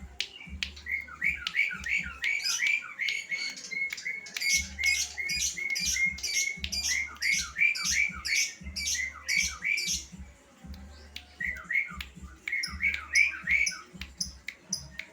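Lovebird chattering in long, fast runs of sharp squawking chirps, several a second. It breaks off about ten seconds in and picks up again briefly near the end.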